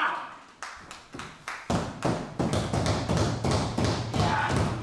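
Quick run of sharp claps or taps, about four a second, from a small arena crowd. A low rumble from the ring joins about two seconds in.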